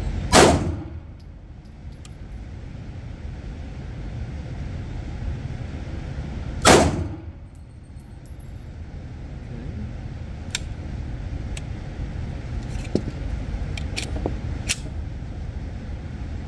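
Two 9mm pistol shots from a Polymer80 Glock-pattern handgun, about six seconds apart, each echoing briefly in an indoor range over a steady low background noise. A few light clicks follow later.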